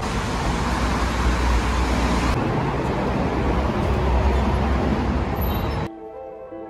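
City street traffic noise, a steady rumble and hiss of passing vehicles, which cuts off suddenly near the end and gives way to quiet music with clear separate notes.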